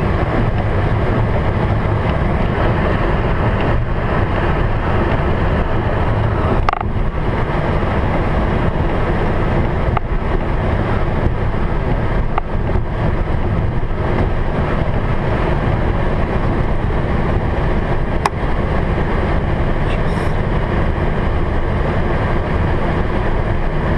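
Steady cockpit noise of a Boeing 737 taxiing: a low rumble and hiss, with a sharp click about seven seconds in and another near eighteen seconds.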